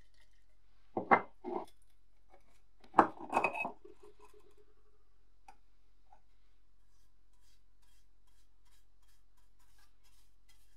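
Metal clinking and knocking in two short clusters, about one and three seconds in; the second leaves a brief ringing tone. Light faint ticks follow.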